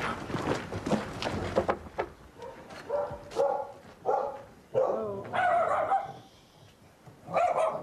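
Footsteps on gravel, then from about two seconds in a dog barking, about six short barks with one longer bark near the end.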